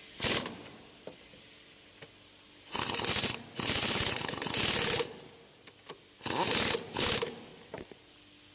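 Ratchet wrench clicking in several short bursts of rapid turning, with pauses between them.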